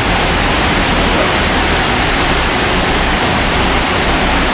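Rushing water of a gorge waterfall, a steady loud roar of noise with a low rumble underneath.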